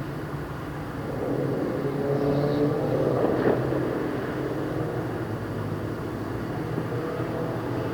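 A vehicle passing, its sound rising over a couple of seconds, peaking about halfway through, then fading, over a steady low hum.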